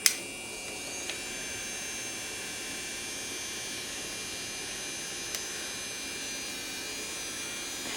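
Yafex electric nail drill (e-file) handpiece running at its top speed of about 30,000 RPM with a steady high-pitched whine. A click at the start, and the whine settles to a steady pitch about a second in.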